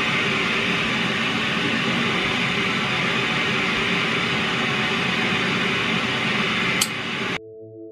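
A steady rushing noise with a click near the end, then an abrupt cut to soft guitar music.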